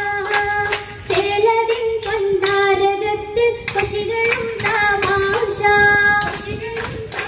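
Oppana song: female voices singing a sustained melody over rhythmic hand claps, about two to three claps a second.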